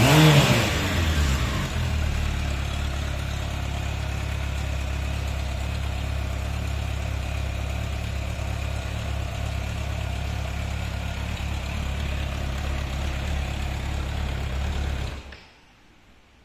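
Suzuki Bandit 650 S inline-four engine, heard through a round stainless silencer, falls back from a brief rev at the start and then idles steadily. The engine sound stops abruptly about fifteen seconds in.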